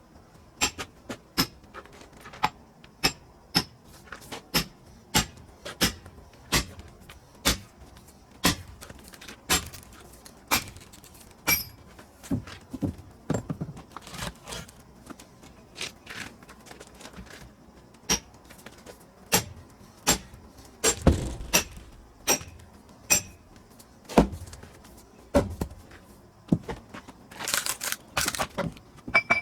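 A long series of sharp wooden knocks and clacks at about one a second while firewood is being split, with a couple of heavier, deeper thuds about two thirds through and a quick run of clatter near the end.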